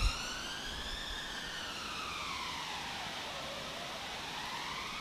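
Emergency vehicle siren wailing, its pitch sweeping slowly up, then down over a few seconds, then up again.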